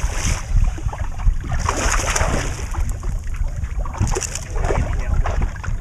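Wind buffeting the microphone with a steady low rumble, and bursts of water splashing about every two seconds.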